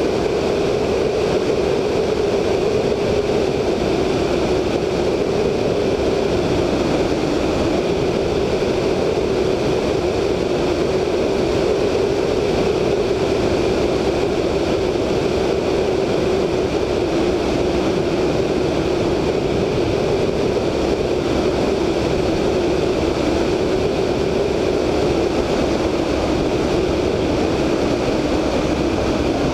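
Inflight sound of a VL Viima II biplane from its wingtip: a steady rush of airflow over the microphone with the drone of its 160 hp Siemens-Halske Sh 14A seven-cylinder radial engine at cruise, wavering slightly in pitch.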